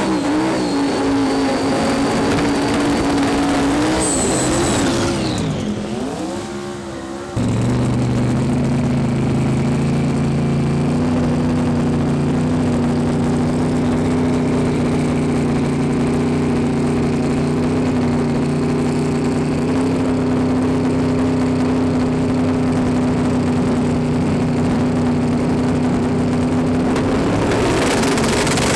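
Drag-racing car's engine running at full throttle, its pitch wavering a few seconds in. After a sudden cut, a race car's engine runs steadily at the start line for about twenty seconds.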